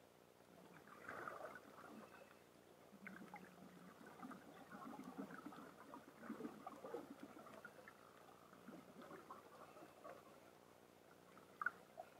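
Faint, muffled underwater sound picked up through a camera's dive housing: irregular low crackling and gurgling, with a brief louder crackle near the end.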